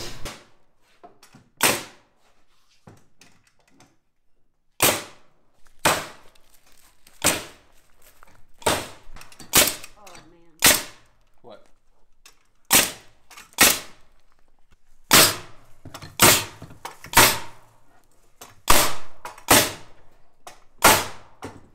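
Pneumatic framing nailer driving nails through wooden blocks into timber beams: a string of sharp shots, roughly one a second and irregularly spaced, starting about two seconds in.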